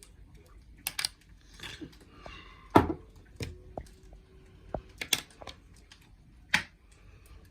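Scattered sharp clicks and knocks, about seven in all, the loudest a little under three seconds in, with a brief rustle between the first few.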